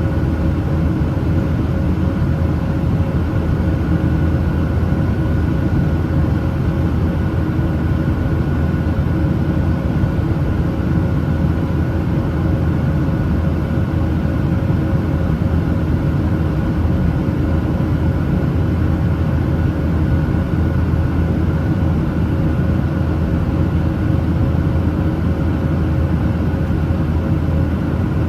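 Steady cabin noise of a Boeing 737-900ER in flight, heard from a window seat: the CFM56-7B turbofan engines droning with a few steady tones over a low rumble and the rush of air.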